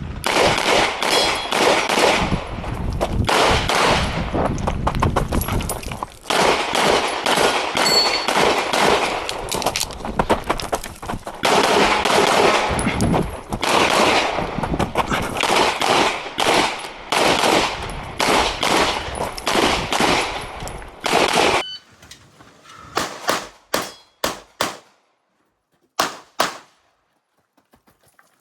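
Handgun fire during a practical pistol stage: rapid strings of shots with short pauses between them, with metallic clangs among the shots. After about 21 seconds the firing thins to a few separate shots.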